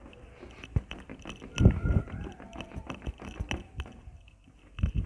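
Cotton waste scrubbed hard over an acrylic headlight lens with polishing compound, making irregular scratchy rubbing and clicking noises; this is the polishing stage of removing the lens's yellowing. Two thumps stand out, the loudest about a second and a half in and another near the end.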